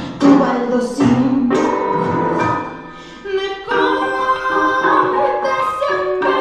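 Music with singing voices over an instrumental accompaniment.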